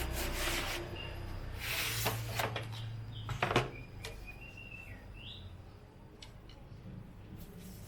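Rustling and a sharp knock as the solar lamp and its packaging are handled, over a low steady hum. Birds chirp faintly in the background in the second half.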